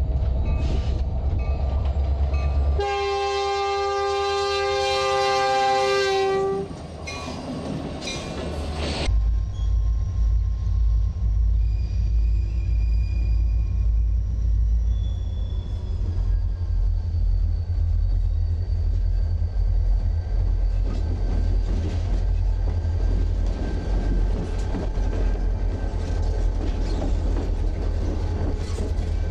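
An EMD diesel locomotive sounds its multi-chime air horn in one long chord of about three and a half seconds, a few seconds in, with a few shorter bursts after it. From about nine seconds in, a diesel locomotive's engine rumbles steadily as it slowly passes close by with a freight train, the wheels clicking over the rail joints.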